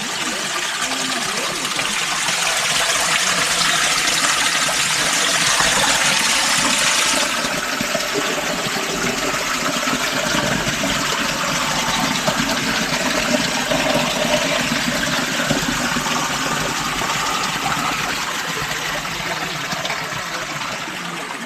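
Rushing water, a steady loud noise of flowing and falling water; the high hiss drops off abruptly about seven seconds in.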